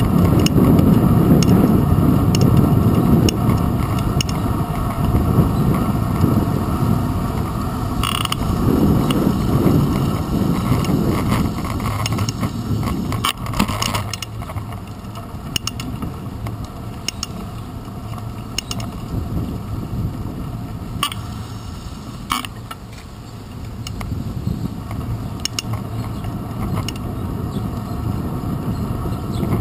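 A moving bicycle as heard from a handlebar-mounted camera: a steady rumble of tyres, road and wind, with the bike rattling and giving scattered clicks and knocks as it rolls over the pavement. The rumble is heavier at first and eases about halfway through.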